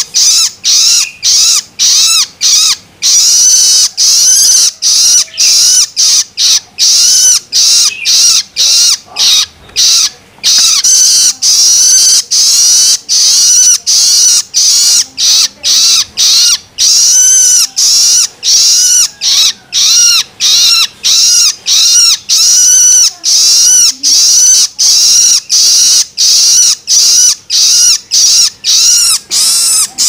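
Juvenile long-tailed shrike (cendet) giving its begging calls ('loloan'), short calls repeated about twice a second without a break.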